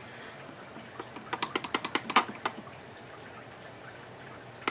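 A quick run of about ten small, light clicks over a second and a half, the last ones the loudest, from the Technics SL-D30 turntable's automatic mechanism being worked by hand while it is greased.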